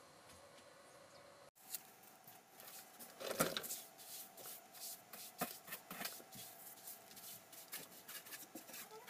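Soft grass broom sweeping a floor in short repeated brushing strokes, with one louder knock a little past three seconds in. The sweeping starts after about a second and a half of faint room hiss.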